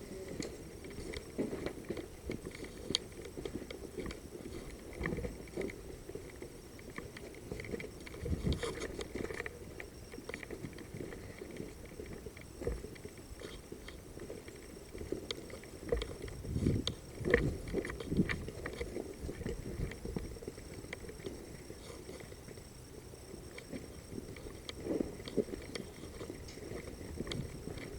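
Footsteps on rough ground as a player walks, an irregular run of scuffs and knocks, louder around the middle.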